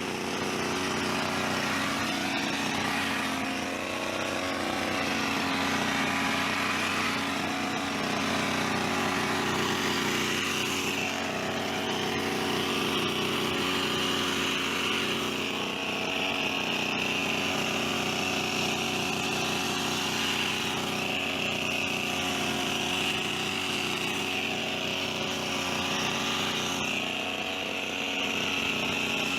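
Petrol hedge trimmer's small engine running at high speed. Its pitch wavers slightly, as it would while the blades cut.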